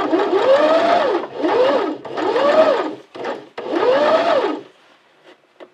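Husqvarna Viking electric sewing machine stitching a seam in four short stop-start runs. In each run the motor's whine rises and then falls in pitch as it speeds up and slows down. It stops a little past three-quarters of the way through.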